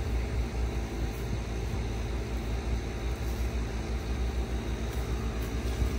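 A steady low rumble with an even hiss over it.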